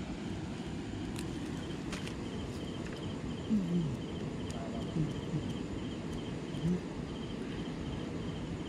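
Night insects chirping in a steady, evenly pulsing rhythm over a low background rumble, with a few short, low, falling voice-like sounds from about the middle onward.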